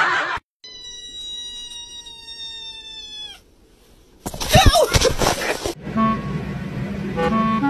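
A steady high tone with overtones, held for nearly three seconds and sagging in pitch at its end. A loud noisy burst follows after a short pause. Then light music with a reedy melody begins near the end.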